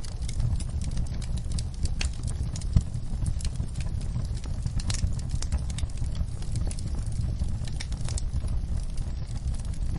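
Wood fire in a fireplace crackling, with a steady low rumble of the flames and frequent irregular pops and snaps, one louder pop a little under three seconds in.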